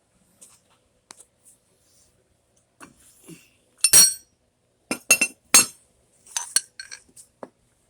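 Steel parts and tools clinking as they are handled and set down: a run of sharp, ringing metallic clinks. The loudest comes about four seconds in, followed by a quick cluster of clinks and then several lighter ones near the end.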